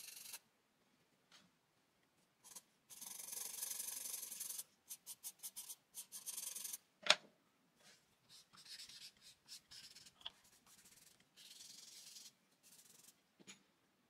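Charcoal pencil scratching across drawing paper in hatching strokes: one long stroke, then a quick run of short strokes, with a single sharp tap about seven seconds in, then softer strokes.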